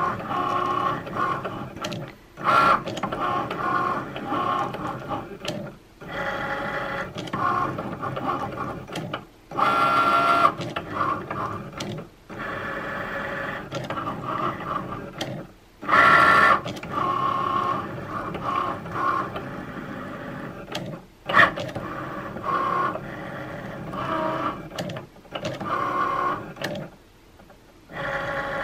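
Cricut Maker cutting machine drawing a design with a pen: its motors whine in short runs of a second or two, the tone changing from run to run, as the pen carriage slides side to side and the rollers move the mat in and out, with brief pauses between moves.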